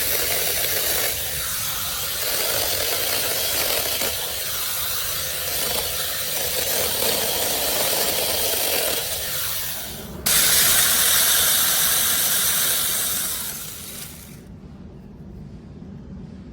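Battery-powered mini chainsaw running and cutting wood, with a dense buzzing rasp whose pitch shifts as it cuts. About ten seconds in it briefly dips and then comes back louder and brighter, then cuts off about fourteen seconds in.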